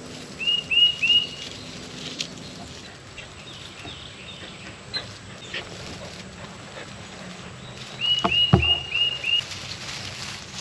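An animal's short, high squeaky calls in two quick runs: three near the start and five more about eight seconds in, with a dull thump among the second run.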